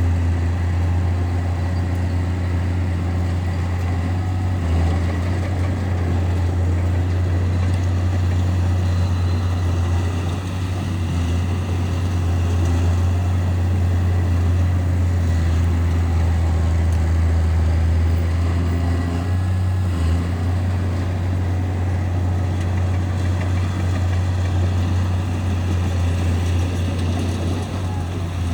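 Bulldozer's diesel engine running steadily at work, a loud low drone that shifts briefly a few times.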